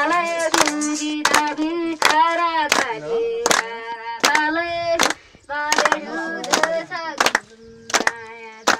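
A boy singing a song, holding long notes, while a group of people claps along in a steady beat, about three claps every two seconds.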